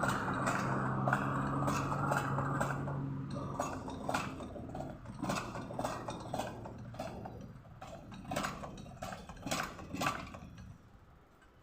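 A steady machine hum that stops about three and a half seconds in, followed by irregular metallic clinks and taps of tools on metal that fade out near the end.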